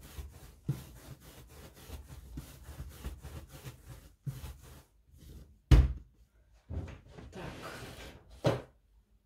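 Hands rolling soft dough into a long rope on a work board, a quick rubbing and brushing, then a few dull thumps on the board, the loudest about six seconds in.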